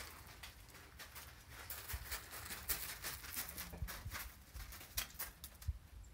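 Irregular crunching footsteps on gravel, with scattered low thumps.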